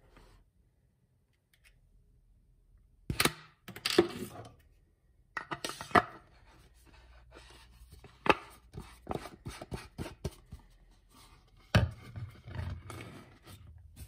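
Hands handling a foam lance and its plastic bottle on a hard countertop: a string of sharp knocks and clicks with scraping and rustling between them, starting about three seconds in.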